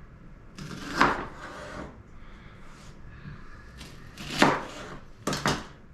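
Kitchen handling noises: a scrape about a second in, then a knock and two quick knocks near the end, as a chopping gadget and vegetables are set out on the counter.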